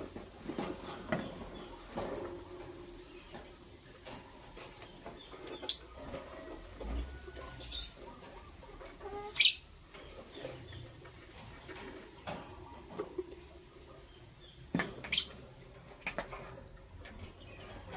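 Lovebirds giving a few short, sharp chirps now and then, the loudest about halfway through, over light scratching and rustling of the birds moving about.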